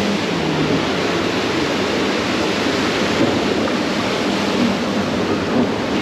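Steady rushing water of a river rapids ride channel around a round raft boat, heard from on board.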